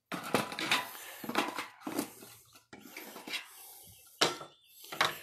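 Metal cooking gear being handled and moved around: a series of clanks, knocks and clatters, the sharpest about four seconds in and again near the end.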